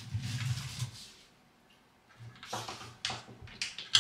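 Rustling, then a gap and a run of light clicks and knocks: things being handled and moved about.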